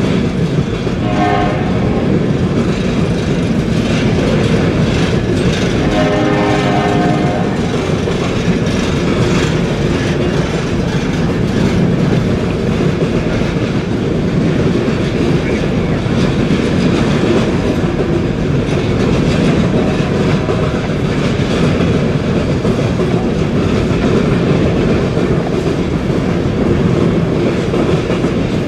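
BNSF iron-ore cars rolling steadily past, their wheels clattering over the rails. A train horn sounds briefly about a second in, and again for a little longer around six seconds in.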